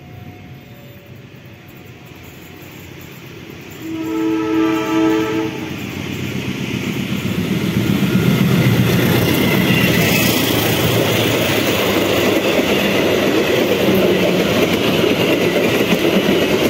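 A diesel locomotive approaching and running through a station. It sounds one multi-tone horn blast of about a second and a half, roughly four seconds in, then engine and steel wheels grow louder, with the clickety-clack of coaches passing over the rails.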